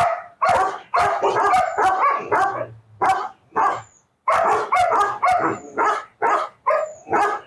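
German Shepherd barking rapidly and repeatedly, nearly three barks a second, with a short break about four seconds in.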